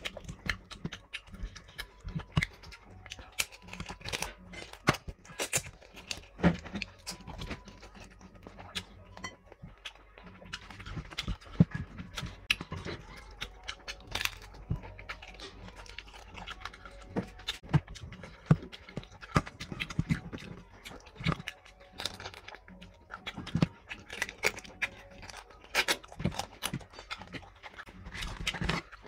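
Close-miked eating: wet chewing, lip smacking and many sharp mouth clicks and crunches as bone-in meat and bread are bitten and chewed, with fingers tearing at the food.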